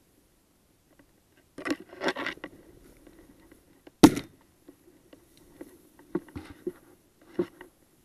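A single shotgun shot about four seconds in, the loudest sound, after a second or so of rustling and crashing through dry grass and brush. Scattered softer knocks and rustling follow the shot.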